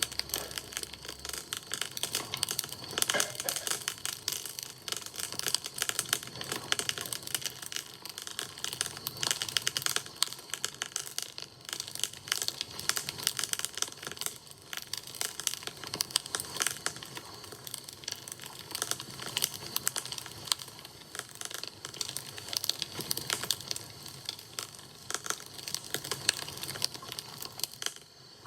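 Wood campfire crackling: a dense, irregular run of small pops and snaps with no pause.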